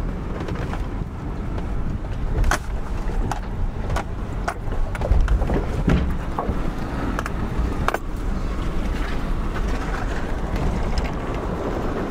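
Lexus LX470 driving slowly over rough off-road ground, heard from inside: a steady low rumble of engine and tyres with several sharp knocks and rattles, the clearest about two and a half, four and a half, six and eight seconds in.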